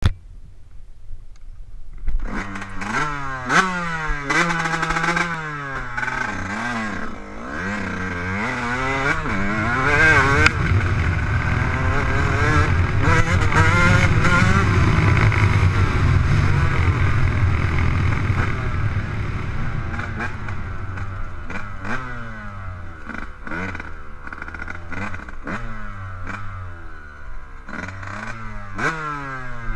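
Motocross dirt bike engine revving up and down repeatedly as the rider accelerates, shifts and backs off, starting about two seconds in, with a long steady loud run in the middle. Short clicks and knocks come through over the engine.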